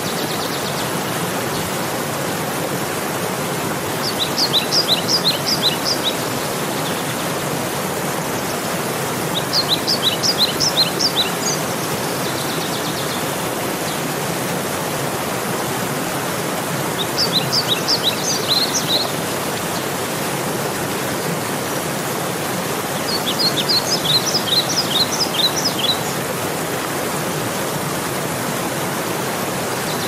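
Steady rushing of a river running over rapids, with a small songbird singing four short phrases of quick high chirps, one every six or seven seconds.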